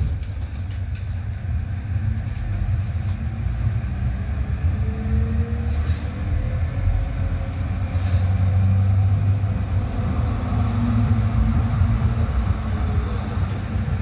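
Basel tram in motion, heard from on board: a steady low rumble from the wheels and running gear. A faint rising motor whine comes in about five seconds in, and a thin high wheel squeal sounds over the last few seconds.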